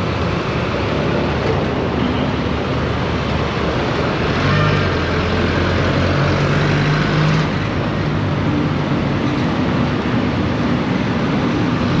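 Road traffic noise recorded from a moving scooter, with a steady rush of wind and tyre noise. From about four seconds in until about nine seconds, a low, steady engine drone rises above the noise.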